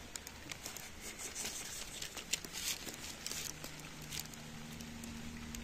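Thin dried-coconut shavings dropped onto grease paper in a small skillet and pushed around by hand: soft, irregular pattering and paper rustling.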